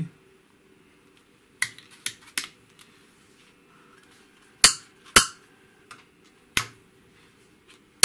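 Miniature metal toggle switches on a homemade aluminium test box flipped by hand, setting the binary zone code and pulsing the validate line of a Boeing 747 cabin temperature module. Three light clicks come about one and a half seconds in, then louder sharp snaps several times through the second half, over a faint steady hum.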